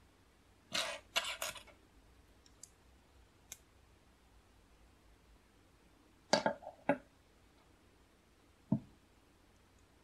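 LEGO plastic pieces clicking and rattling as they are handled and fitted together: a quick cluster of clicks about a second in, a couple of faint ticks, another cluster around six seconds in, and a single duller knock near the end.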